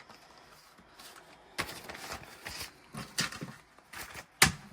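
Paper banknotes and cash envelopes being handled, making a run of short rustles and crinkles as the bills are slid into an envelope. About four and a half seconds in there is one sharper, louder snap or tap.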